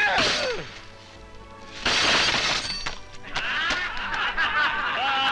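A falling, sliding pitch, then a loud crash of something breaking about two seconds in, followed by a group laughing, all over music.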